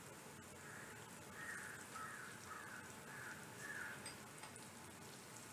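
Garlic frying quietly in hot oil in a kadhai, stirred with a wooden spatula. From about a second in, a crow caws about six times in quick succession.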